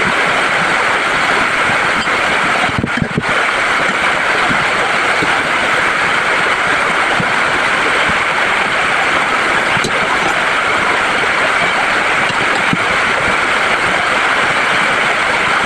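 Heavy rain falling: a loud, steady hiss.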